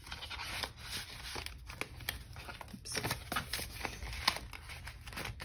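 Paper banknotes and cash envelopes being handled and put away: a string of crinkling rustles and light clicks, with one sharper click about four seconds in.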